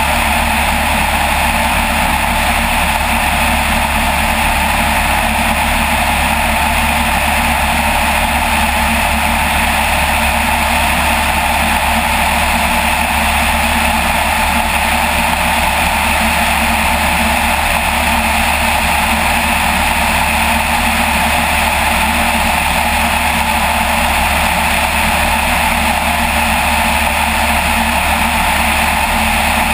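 Light aircraft's piston engine and propeller running with a steady drone in flight.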